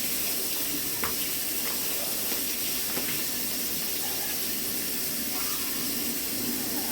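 Steady hiss of water running from a tap, with a couple of faint clicks.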